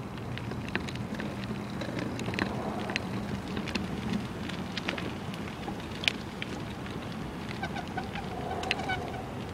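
Bicycle rolling along a paved street: a steady rush of tyre and wind noise with scattered sharp clicks and rattles. From about three-quarters of the way in, a run of short high-pitched tones joins it.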